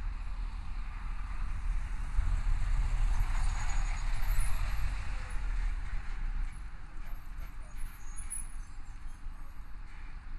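City street traffic: a low engine rumble with the noise of a passing vehicle swelling and fading about halfway through. Thin high-pitched squeals come twice.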